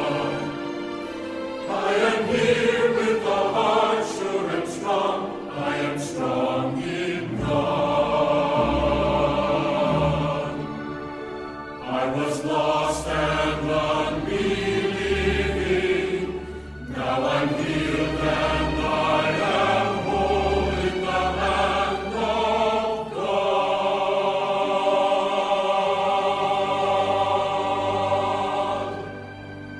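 Choral music: a choir singing sustained chords, with low bass notes coming in about seven seconds in. A final held chord drops in level near the end.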